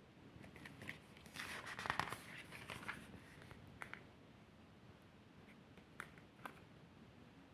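Faint handling of a Blu-ray box set's packaging: a stretch of scraping and rustling between about one and three seconds in, then a few separate clicks and taps.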